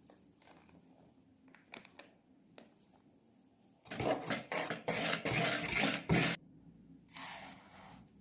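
Kitchen handling sounds while preparing a cake: a few light clicks, then about two and a half seconds of loud scraping and rustling made of many quick strokes, then a shorter, softer rustle.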